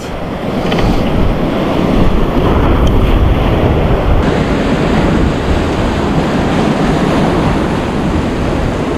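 Surf breaking and washing over a rocky shoreline, with wind buffeting the microphone in a steady low rumble.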